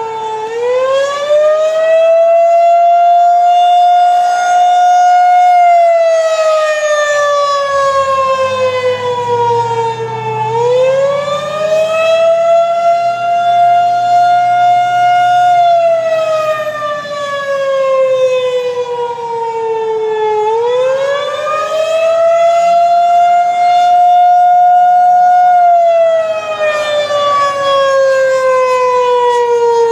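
Federal Signal outdoor tornado warning siren sounding for a routine test, its tone rising and falling about every ten seconds: a quick rise, a short hold, then a slow fall, three times over.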